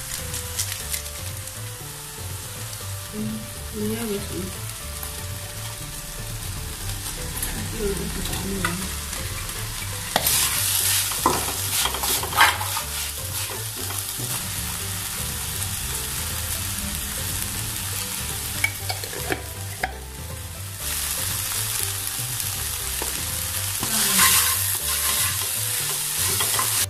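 Minced chicken and vegetable filling sizzling in a hot frying pan while a spatula stirs it and scrapes the pan. The scraping and clattering gets louder about ten seconds in and again near the end.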